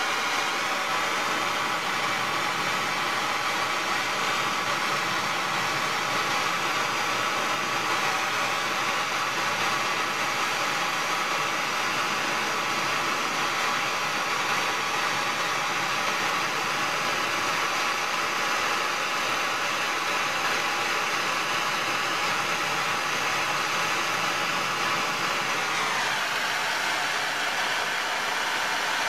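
Hand-held propane torch burning with a steady hiss, its flame heating the pine-pitch glue on a knife handle. The hiss changes tone, going lower, near the end.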